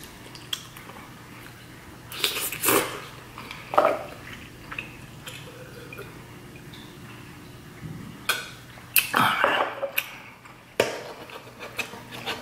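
A person eating instant ramen noodles close to the microphone: wet chewing and slurping in short, irregular bursts, with light clicks of a metal fork against the plate and a sip from a glass.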